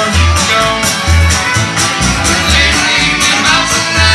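Bluegrass band playing live: fiddle and strummed acoustic guitars over an upright bass plucking notes on a steady beat.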